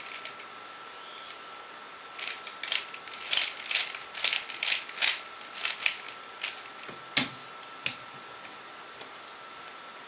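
3x3 Rubik's cube being turned by hand: a quick run of plastic clicks as layers turn, from about two seconds in until about eight seconds in, with a louder knock near the end.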